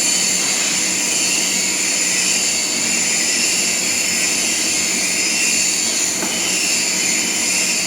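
Steady, loud machine whir with a bright hiss, holding even and unbroken throughout.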